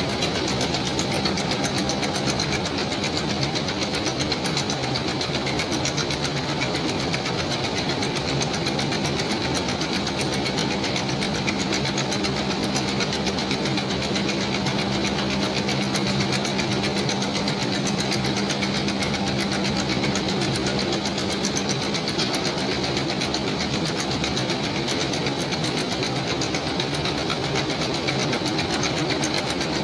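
Fabric-processing machine running steadily: a continuous mechanical noise with a steady low hum and a thin high whine.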